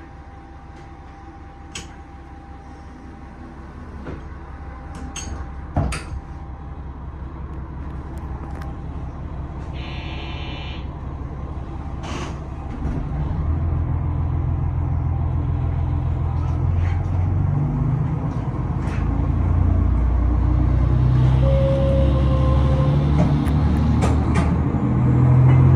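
JR Shikoku 2000 series diesel railcar heard from the driver's cab: the diesel engines run at idle, then about halfway in they power up as the train pulls away, getting steadily louder with stepping engine notes. A brief electronic tone sounds just before it starts, with a few sharp clicks in the cab.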